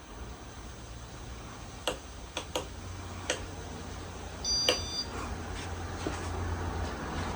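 Casablanca Spirit of Saturn ceiling fan's motor running with a steady low hum. Several sharp clicks and one short electronic beep come about four and a half seconds in, and the fan's noise grows toward the end.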